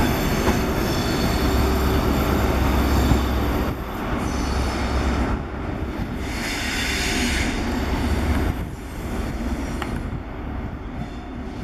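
A passing train: the diesel engine of a Class 43 HST power car rumbles low and steadily as the train rolls slowly round a curve. From about six to seven and a half seconds in there is a higher squeal, typical of wheels on curved track. The sound eases off a little near the end.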